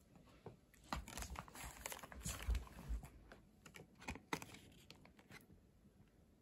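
Papillon–Corgi mix puppy playing with a toy: faint, irregular clicks and taps with some rustling, thinning out over the last second or so.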